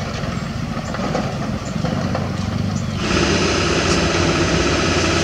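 Diesel engines of a Kobelco SK200 excavator and dump trucks running steadily, with a few light knocks in the first part. About three seconds in the sound steps up, louder and closer, to a fuller engine note.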